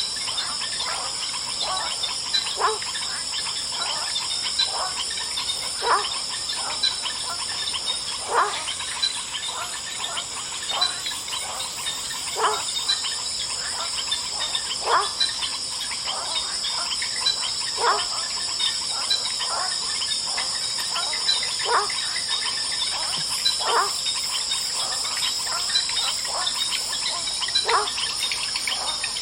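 Swamp night chorus: a steady, high insect trill with short animal calls that drop in pitch, repeating every second or two.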